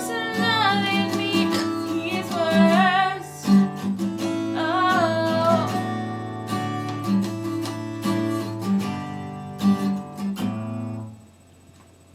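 Acoustic guitar strummed with a voice singing a few short phrases over it in the first half, then the guitar alone, which stops about eleven seconds in.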